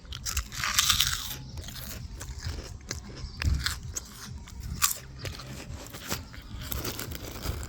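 Crunchy food being bitten and chewed: irregular crunches and crackles.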